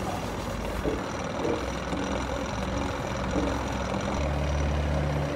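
Rear differential of a BMW on a lift rumbling as its rear wheels turn, over a steady low engine hum that grows louder about four seconds in. The rumble points to a worn differential bearing or a worn pinion gear.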